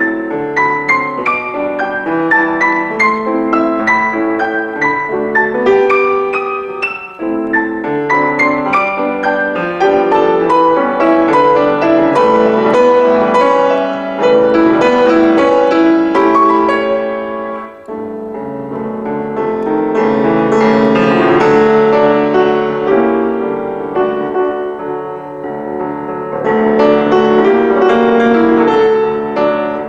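Solo piano playing, with flowing runs and full chords; the music thins briefly about seven seconds in and again around eighteen seconds.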